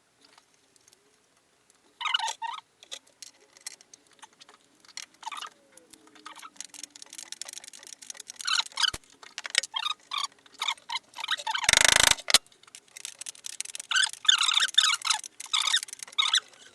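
Small, irregular metallic clicks and rattles of a nut being started by hand on a bolt of a car's front suspension, with one short, loud scraping burst about twelve seconds in.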